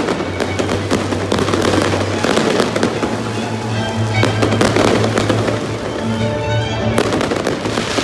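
Fireworks crackling and popping in a dense, rapid string of sharp reports, over music with held notes and a steady low bass.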